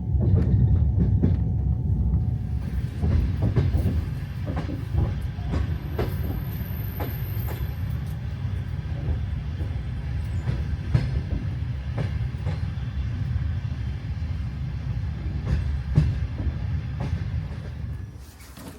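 Soviet-era night train running on the rails: a steady low rumble with irregular clicks and clacks of the wheels over rail joints. The rumble drops away sharply near the end.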